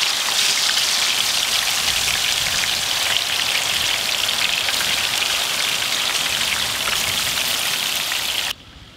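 Marinated tuna chunks and curry leaves deep-frying in a wok of hot oil: a loud, dense sizzle and crackle. It cuts off suddenly near the end.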